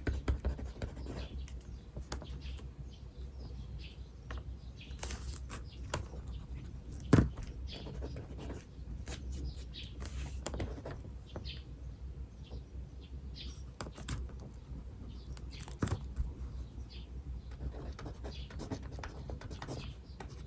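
Birds chirping in short calls alongside the light scratching of writing on paper, with one sharp tap about seven seconds in.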